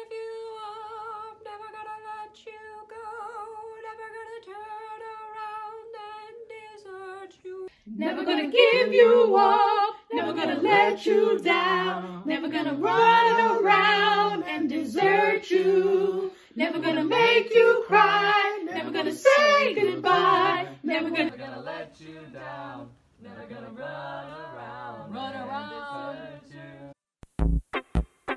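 Unaccompanied singing: first a single girl's voice holding long, steady notes, then from about eight seconds in a group of four, male and female voices, singing together, louder.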